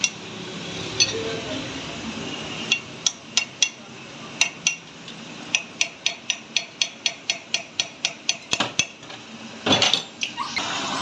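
Repeated light metallic taps and clinks, scattered at first and then a quick regular run of about three or four a second, with a denser clatter near the end.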